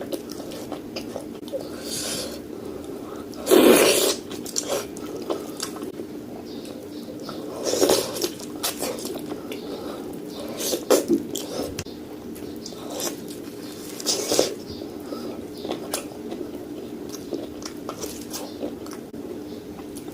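Close-miked eating sounds of pork ribs being chewed: irregular wet mouth clicks and smacks, with a few louder bites or slurps spaced several seconds apart. A steady hum runs underneath.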